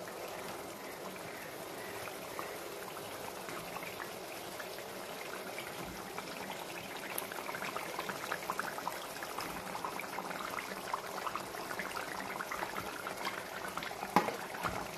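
Thin fish curry boiling in a kadai: a steady bubbling with many small pops and crackles that grow busier from about halfway.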